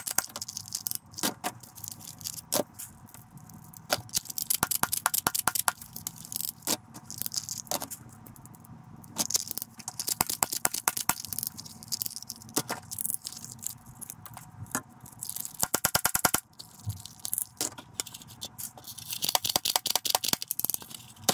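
Plastic toy guns clattering, scraping and knocking against each other as they are rummaged through and lifted out of a box, with a quick run of rapid clicks about sixteen seconds in.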